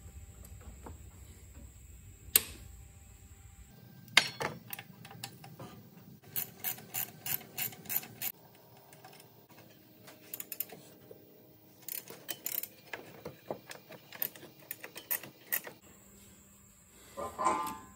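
Hand ratchet and socket clicking in short runs at about four clicks a second, working the bolts of a bracket on a Jeep 4.0 engine. Two sharp knocks come early, and a louder clunk near the end.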